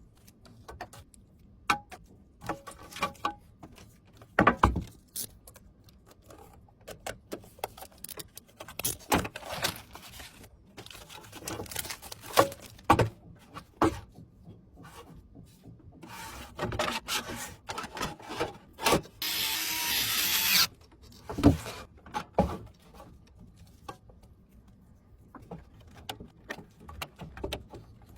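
Computer parts being handled and fitted during a PC build: irregular clicks, knocks and rubbing, with a steady hiss lasting about a second and a half roughly two-thirds of the way through.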